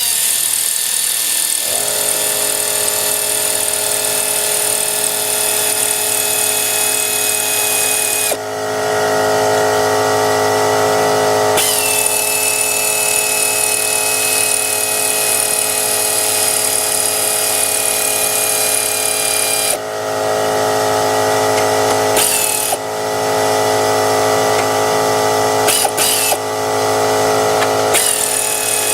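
Pneumatic air ratchet run in several trigger pulls, a long run at first, another in the middle, then short bursts near the end, each with the hiss of exhaust air. A steady motor hum runs underneath from about two seconds in.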